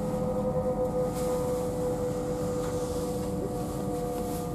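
Passenger train running at speed, heard inside the carriage: a steady low rumble from the wheels and track with a steady hum over it.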